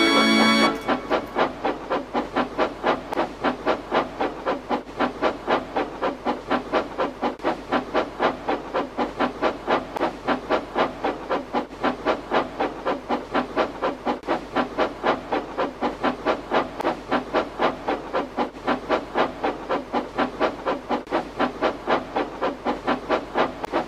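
Steam locomotive chuffing steadily along, an even run of exhaust puffs at about three a second.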